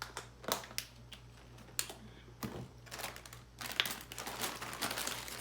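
Scattered sharp clicks and rustles, then from about three and a half seconds in a continuous crinkling of a foil snack bag being handled and opened.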